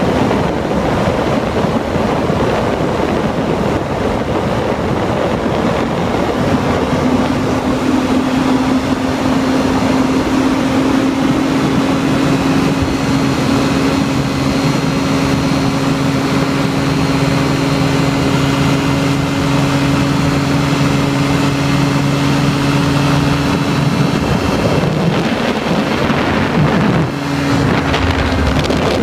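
Open-cockpit ultralight aircraft in flight: the engine drones steadily under heavy wind rush on the microphone. The engine note wavers and the sound dips briefly near the end.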